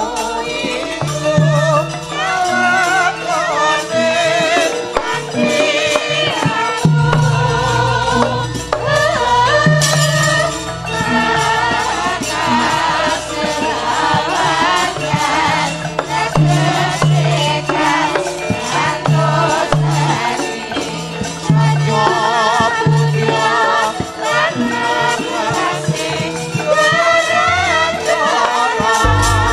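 Javanese gamelan playing with a sindhen's wavering, ornamented vocal line over it and short low notes repeating underneath.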